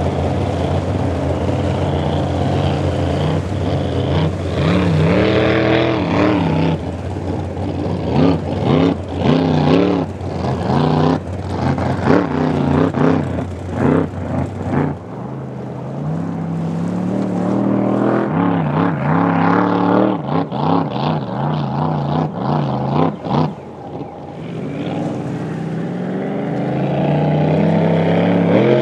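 Supercharged V8 engines of hot-rod drag boats running hard on the water, the engine note rising and falling as the throttle works. In the middle the note breaks up into rapid choppy bursts, then climbs steadily twice as the boat accelerates.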